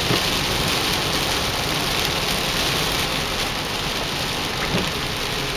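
Heavy rain falling in a steady hiss, with a low rumble underneath.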